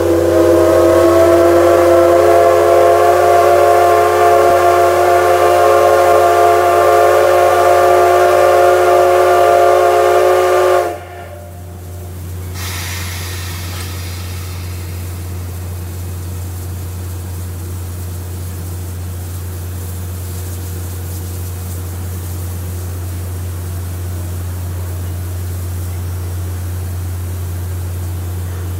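Steam locomotive C57 180's whistle blowing one long departure blast, a chord of several tones held for about eleven seconds and cut off suddenly. A quieter steady hiss of venting steam follows.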